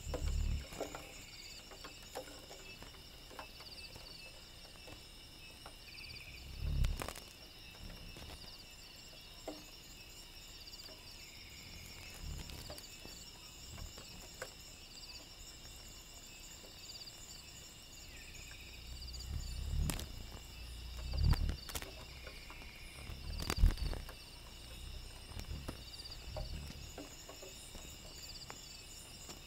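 A chorus of night-calling insects: several insects trilling steadily at different high pitches, one with a pulsing call that repeats every second or two. A few low bumps, likely from handling the recording device, come about a quarter of the way in and twice near the end, the last one the loudest.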